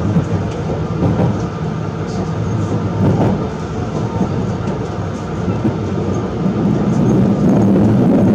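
Running noise of an express train heard from inside the passenger carriage: a steady rumble of wheels on rail with a few faint clicks.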